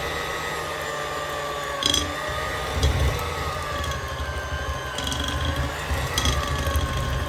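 Kenwood electric hand mixer running steadily with a motor whine that wavers slightly in pitch, its beaters creaming soft butter and icing sugar in a glass bowl. A few sharp clicks of the beaters knocking against the glass.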